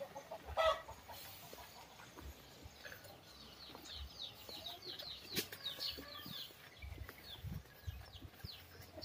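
Chickens clucking: a short cluck about half a second in, then a run of quick, high, falling chirps through the middle.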